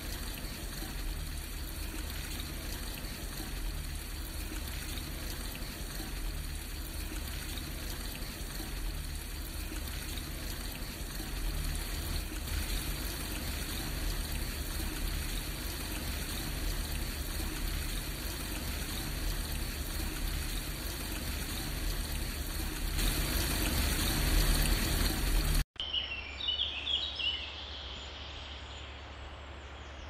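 Steady rushing of a large waterfall, a little louder shortly before it cuts off abruptly about four seconds before the end. After the cut come a few short bird chirps over a quiet outdoor background.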